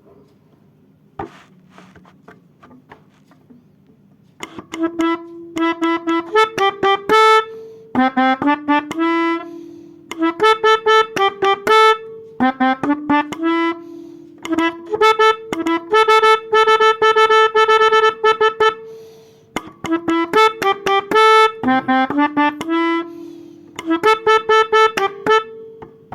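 A pianika (melodica) plays short phrases of 'telolet' bus-horn melodies, mixing quick repeated notes with a few held notes, in bursts separated by short pauses. About four seconds of faint knocks come before the playing starts.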